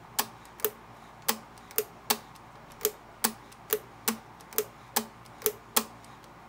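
Vintage Kenmore sewing machine's feed-dog drop mechanism clicking as it is worked back and forth by hand, about two sharp clicks a second as the parts snap between positions. The mechanism has just been freed of old gummy oil with heat and fresh oil and is being exercised while still warm.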